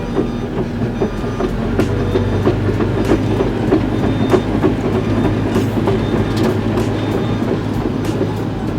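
Excavator running with a steady engine hum, under irregular metallic clanks and rattles from the machine.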